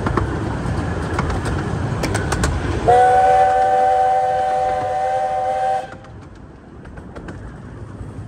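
Steam locomotive whistle on a 15-inch gauge miniature railway, sounding one steady chord of several notes for about three seconds. It slides up slightly in pitch as it opens and cuts off sharply, over a steady rumble that drops away after it.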